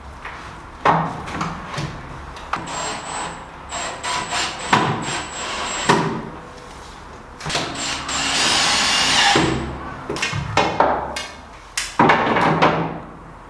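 Cordless drill-driver running in several short bursts, driving fasteners into a wooden door frame, the longest burst about eight seconds in. Sharp knocks of handling the tool and frame come between the bursts.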